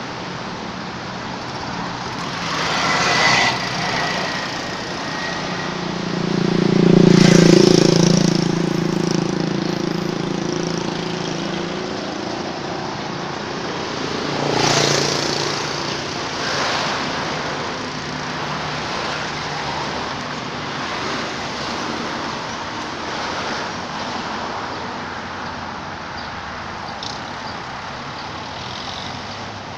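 Road traffic: motor vehicles passing by one after another. The loudest pass, with a low engine note, comes about seven seconds in, and lighter passes come around three and fifteen seconds in, over a steady rush of traffic.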